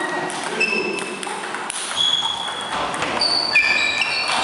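A table tennis rally: a celluloid ball clicks off rubber-faced bats and bounces on the table. Each hit is a short, high ping, and the hits come quicker in the second half, with faint voices behind.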